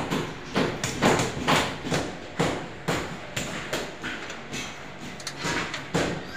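Steel wrench working bolts on a welding machine's sheet-metal cabinet, giving a string of short metal clinks and knocks, roughly two a second.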